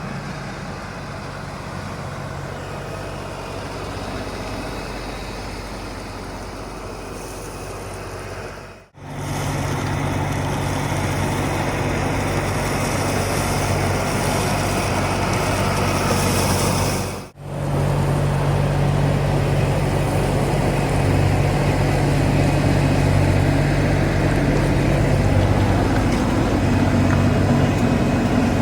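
LS MT357 tractor's diesel engine running steadily under work, in three stretches that each break off abruptly, the later stretches louder.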